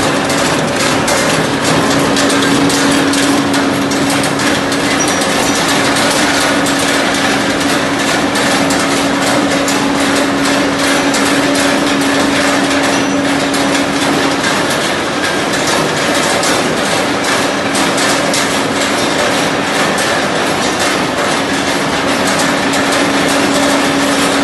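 Dry areca nut dehusking machine running, with a dense, rapid clatter of nuts being knocked and husked inside over a steady motor hum. The hum drops away about fifteen seconds in and comes back near the end.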